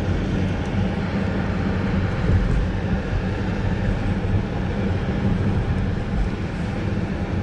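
Steady low rumble of a car driving, engine and road noise heard without a break.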